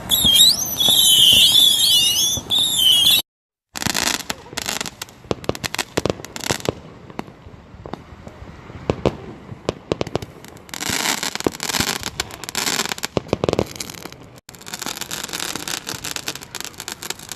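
Fireworks: whistling fireworks screech loudly with a wavering pitch for about three seconds. After a short break, irregular bangs and bursts of crackling from exploding fireworks carry on to the end.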